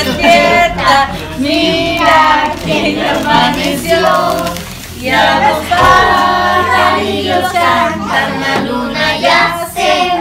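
A group of women and children singing a song together, without instruments.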